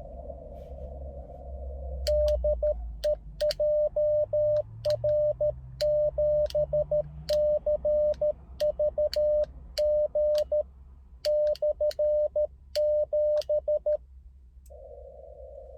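Transceiver's CW sidetone: a single mid-pitched tone keyed on and off in Morse code for about twelve seconds, with sharp clicks along with the keying, as the station sends on the 30 m band. Before and after the sending, the receiver's narrow band-noise hiss is heard; it drops out while the tone is keyed.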